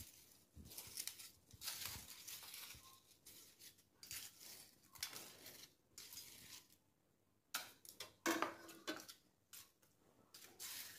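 Light, scattered clinks and crisp rustles as chopsticks push freshly fried, crunchy strips off a perforated stainless-steel skimmer onto a mesh tray lined with paper towels.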